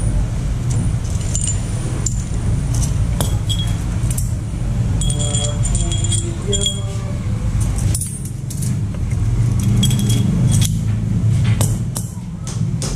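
Small metal parts and tools clinking and ringing now and then, over a steady low rumble.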